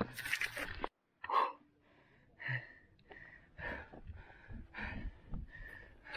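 A man's heavy, gasping breaths, out of breath from a steep uphill climb, coming in short separate puffs. The sound breaks off completely for a moment about a second in.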